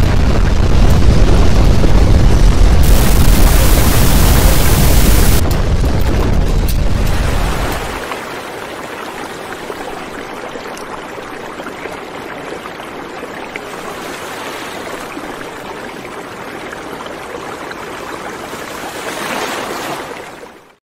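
Earthquake shaking picked up by a camera's microphone: a heavy low rumble, with a loud hiss on top for about two seconds a few seconds in. The rumble stops about eight seconds in, leaving a quieter steady hiss that cuts off just before the end.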